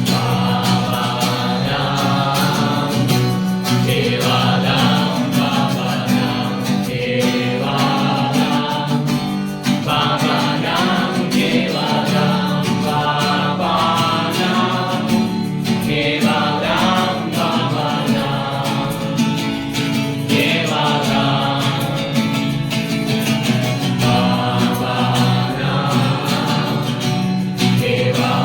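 Music with voices singing together in phrases over a steady instrumental accompaniment.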